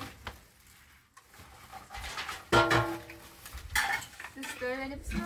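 Dishes and cutlery clinking, with one sharp ringing clink about two and a half seconds in and a few lighter knocks after it.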